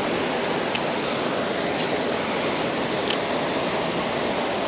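Steady rush of falling and tumbling water from a waterfall, an even roar that doesn't change, with a few faint high ticks.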